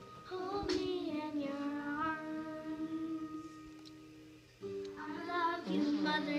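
Young girls singing a song over musical accompaniment, holding a long sung note that fades out, then starting a new phrase near the end.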